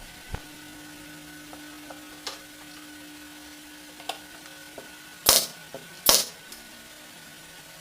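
Scattered light clicks and knocks from handling and fitting small wooden parts, with two louder, short noisy sounds near the end, under a faint steady hum.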